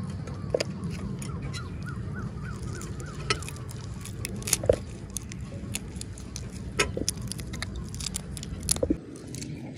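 Shell of a grilled giant river prawn crackling and snapping as it is peeled apart by hand: scattered sharp clicks over a steady low rumble.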